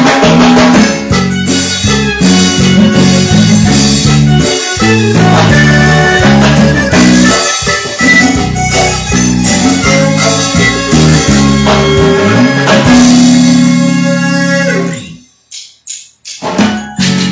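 Live band playing an instrumental passage of Latin dance music, with drums, bass and guitar. About 15 s in the band cuts out together for a second, with a few short hits in the gap, then comes back in.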